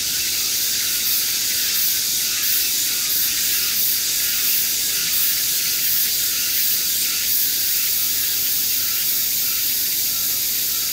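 A steady high-pitched hiss with almost nothing in the low range, holding level throughout.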